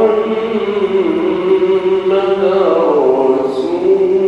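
A single man's voice chanting the Islamic call to prayer (adhan) in a slow, melismatic line. He holds long notes and slides up and down in pitch, dipping lower about three seconds in.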